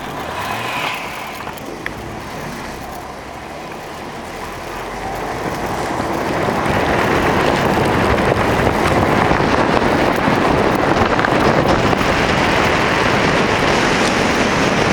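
A car driving across snow, its engine and tyres blending into a rushing noise. The noise builds over the first several seconds as the car picks up speed, then holds steady and loud.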